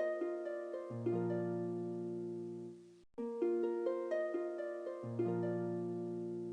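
Background music: a short melodic phrase of plucked-sounding notes that repeats, with a brief break about three seconds in.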